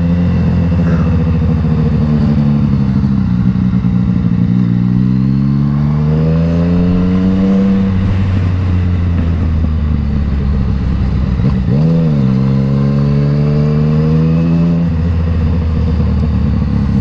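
Yamaha MT-09 inline three-cylinder engine with an Akrapovič exhaust, running under way. The engine note climbs steadily about six to eight seconds in and falls back. It dips sharply and rises again about twelve seconds in, then holds steady.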